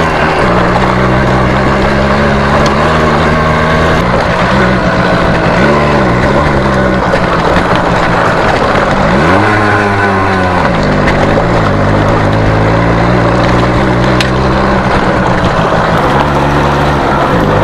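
Small two-stroke single-cylinder motorcycle engine running steadily, its pitch rising and falling once about nine to ten seconds in.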